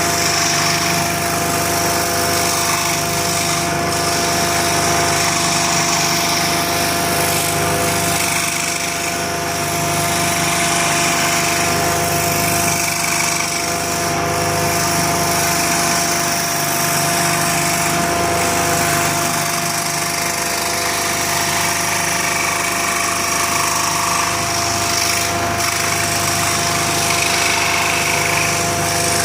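A woodworking power tool running steadily, a continuous hum with a constant whine over it.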